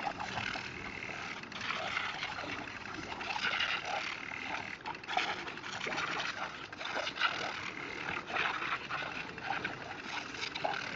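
Garden hose spraying with a steady hiss while mastiffs bite and snap at the stream, with short irregular splashing and dog mouth noises throughout.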